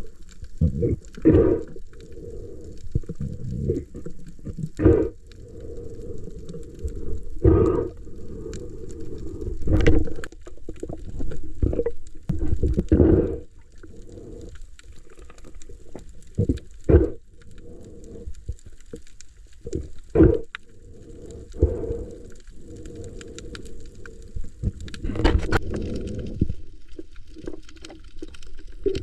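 Muffled water sound, as heard underwater, with irregular surges and bubbling bursts every second or few.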